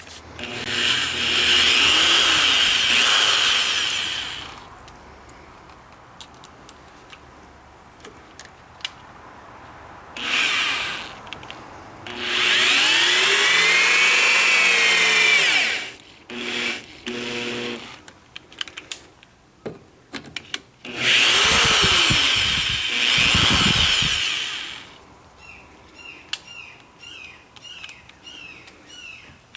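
Cordless drill driving long screws into a door's latch and strike plates, in about five runs of a few seconds each, the motor speeding up and slowing down in each run. A series of light clicks follows near the end.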